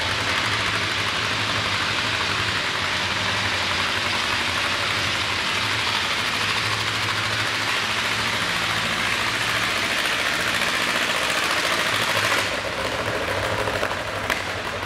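Old John Deere two-cylinder tractor engine running hard under load as it pulls a weight-transfer sled on a dirt track, over a steady loud hiss. The hiss drops away about twelve seconds in, and the engine keeps running.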